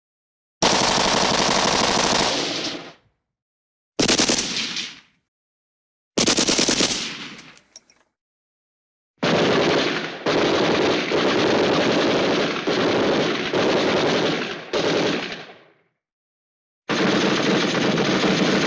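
Vintage stock machine-gun sound effects from old film and cartoon libraries: five bursts of rapid automatic fire separated by dead silence, each fading out at its end. The longest runs about six seconds with several short breaks.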